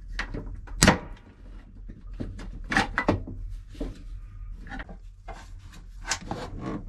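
Diagonal cutters snipping plastic wire ties off a boat's bilge wiring harness: a handful of sharp snaps, the loudest about a second in, with clicks and rustling from the wires and plastic connectors being handled between them.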